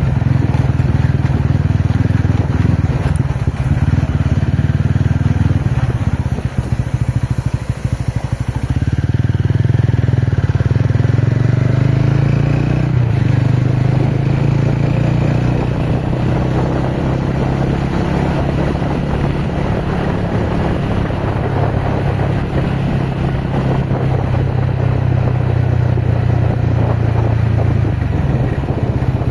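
TVS Ronin motorcycle's single-cylinder engine running under way. The engine note drops back about eight seconds in, then climbs steadily as the bike pulls again.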